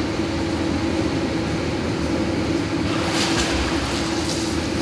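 Steady machine hum filling an indoor pool room, with a steady low tone. About three seconds in, splashing from a child swimming joins it in short bursts.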